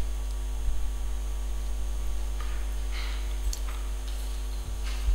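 Steady electrical mains hum, with a few faint knocks and brief rustles over it.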